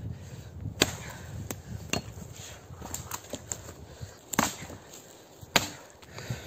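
Bellota axe chopping fallen pine branches: about five sharp strikes of the blade biting into the wood, with a pause of about two seconds in the middle and the last two strikes the loudest.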